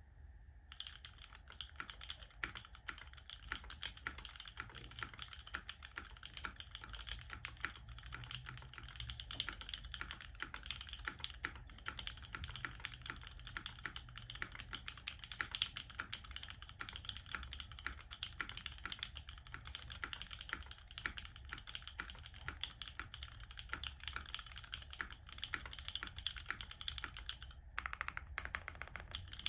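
Fast, continuous typing on a 60% o-ring-mount mechanical keyboard with Cherry MX Black linear switches, a full carbon-fibre plate and GMK keycaps: a dense stream of keystrokes with a brief pause near the end.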